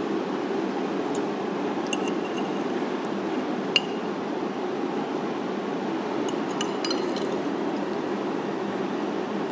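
A metal fork clinking against a ceramic plate a few times, with one sharp clink a little under four seconds in and a quick cluster of light clinks later, over steady background noise.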